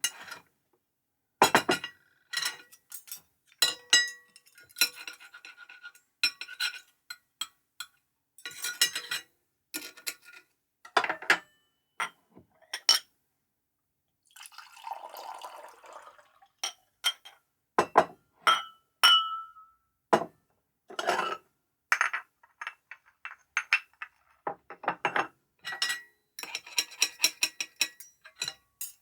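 Dishes and glasses clinking and knocking together in irregular clusters, many of the strikes leaving short high ringing tones. About halfway through there is a softer stretch of noise lasting roughly two seconds.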